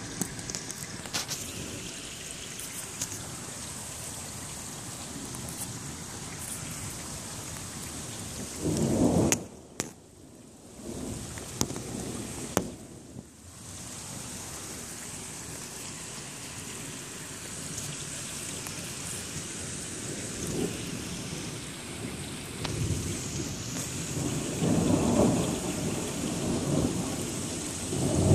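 Steady rain falling with rumbles of thunder, one short rumble about nine seconds in and a longer one building near the end. Scattered sharp ticks of raindrops sound through the rain.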